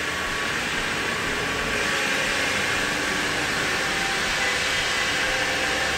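Steady machine noise: a constant hiss with a faint hum, as from an engine or motor running without change.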